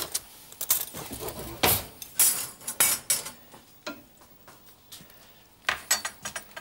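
Kitchen utensils and pans clattering: a series of irregular clinks and knocks, with the loudest ones around two to three seconds in and again near the end.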